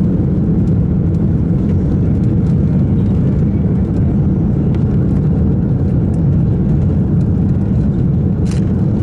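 Steady low rumble inside the passenger cabin of an Airbus A310-300, the engines and airflow running evenly with no change in level.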